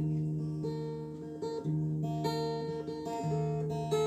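Background music: acoustic guitar playing slow, sustained chords, the bass note changing about every second and a half.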